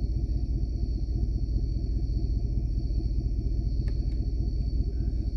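Pickup truck engine idling, a steady low rumble heard inside the cab, with a faint steady high-pitched tone over it.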